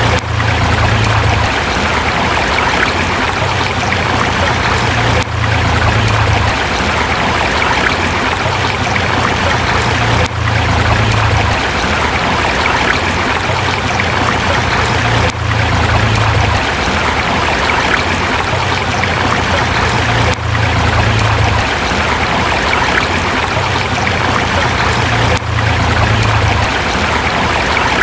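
Forest river running steadily over rocks, a constant rushing with a low rumble underneath. The same few seconds of recording repeat, with a brief dip in level about every five seconds where the loop joins.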